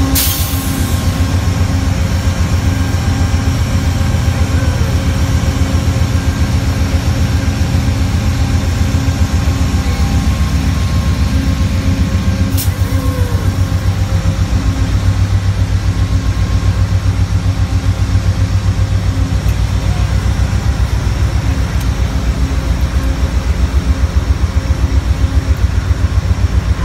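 Amtrak GE P42DC Genesis diesel locomotive idling while stopped, a loud, steady low rumble with a faint steady whine above it. A sharp click comes right at the start and another about halfway through.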